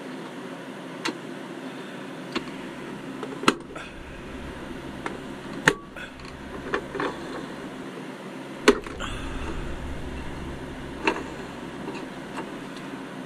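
Small metal clicks and taps as wheel-and-axle assemblies are handled and fitted into a die-cast toy van's chassis, about eight in all with three louder ones, over a steady background hum.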